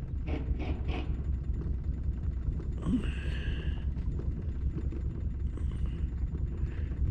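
Boat motor running steadily at trolling speed: a low, even rumble. A brief higher-pitched noise comes about three seconds in.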